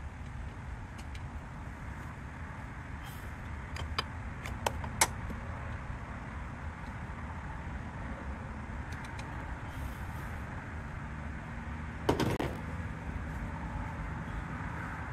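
A wrench working the brake-line fittings on a car's brake master cylinder: a few sharp clicks about four to five seconds in and a louder short clatter just after twelve seconds, over steady low background noise.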